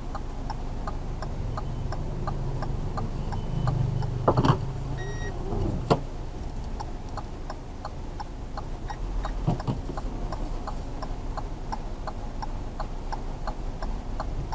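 A car's turn-signal indicator ticking steadily, about two clicks a second, inside the cabin over the low hum of the idling engine. A couple of louder knocks come near the middle.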